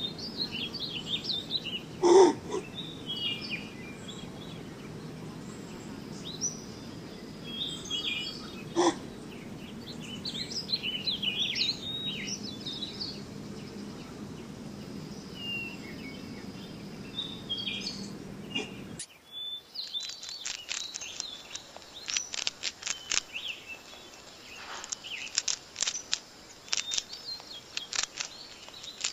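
Small birds chirping over a steady outdoor background, with a sharp knock about two seconds in and another near nine seconds. About two-thirds of the way through, the background drops away and a quick, irregular run of crisp crunching clicks begins: a guinea pig munching lettuce leaves.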